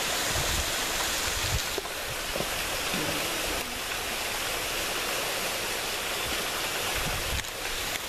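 Small waterfall spilling onto rocks: a steady rush of falling water, with a few brief low bumps.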